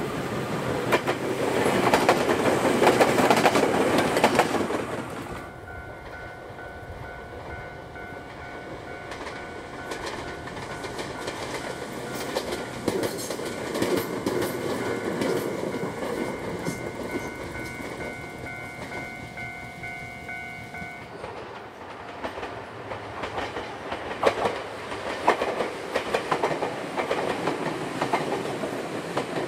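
Two-car Ryutetsu Nagareyama Line electric trains passing on the single track, wheels clattering over the rail joints. In the middle a steady high multi-pitched tone sounds for about fifteen seconds, starting and stopping abruptly.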